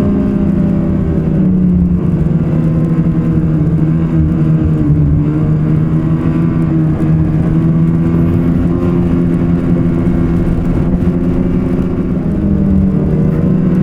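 Snowmobile engine running steadily under way, with the engine speed easing off and picking up again a couple of times.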